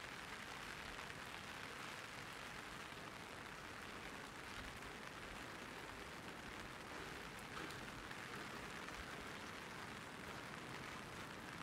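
Light rain pattering on an umbrella: a steady, even hiss with faint scattered drop ticks.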